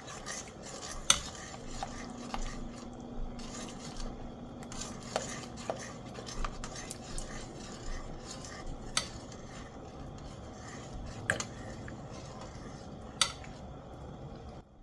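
A utensil stirring and swirling a pot of boiling sauce while beaten egg is drizzled in, with scattered sharp clinks of metal against the pot. The sound stops suddenly near the end.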